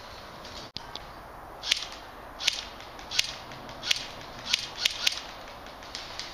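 Airsoft gun firing single shots, about seven sharp snaps spaced roughly half a second to a second apart, a couple of them in quick succession near the end.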